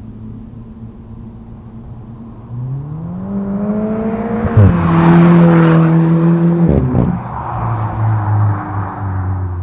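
Alfa Romeo 4C's 1.75-litre turbocharged four-cylinder through a resonated Magnaflow stainless center-exit exhaust (Centerline Stradale), accelerating hard in second gear on a drive-by. The note climbs as the car approaches and is loudest for a couple of seconds as it goes past. About seven seconds in the pitch drops, and the sound fades as the car moves away.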